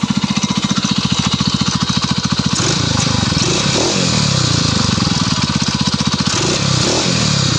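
Stels Kapitan snowmobile engine idling with an even pulse, then revving up and down several times from about two and a half seconds in. The owner hears no sharp knock after treating the engine with an RVS wear-repair additive, though he suspects a failing bearing.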